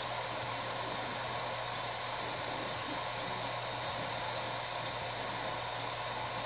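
Prusa i3 3D printer's cooling fans running with a steady whir over a low, constant hum.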